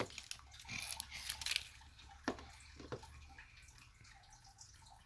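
Small plastic toy packaging being handled and opened: light crinkling with a few sharp plastic clicks, the loudest about two seconds in.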